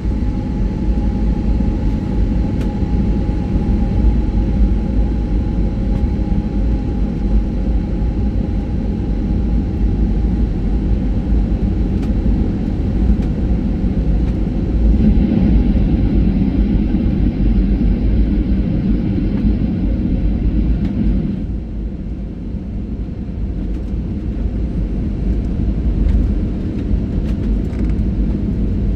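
Steady cabin noise of a jet airliner in flight: a deep rumble of engines and airflow, with a faint whine that fades over the first several seconds. About halfway through the noise grows louder and hissier for several seconds, then drops off fairly suddenly.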